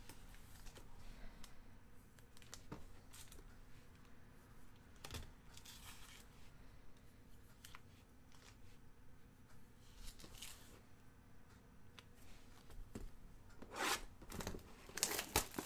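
Foil trading-card packs crinkling and rustling faintly as they are handled and marked one by one, with a louder spell of crinkling near the end.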